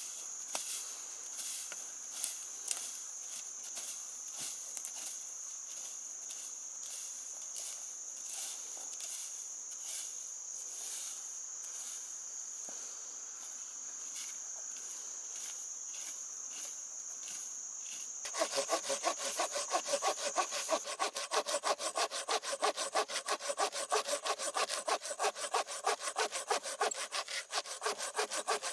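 A hand saw cutting through wood in fast, even back-and-forth strokes, starting suddenly about two-thirds of the way through and becoming the loudest sound. Before it, a steady high insect drone runs on and fades out soon after the sawing starts.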